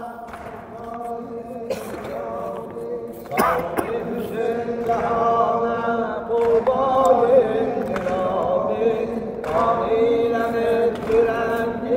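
Male chanting of a Muharram mourning elegy (mərsiyə) for Imam Husayn, in long, wavering held notes over a steady held tone. The first few seconds are softer, and it grows louder from about three and a half seconds in.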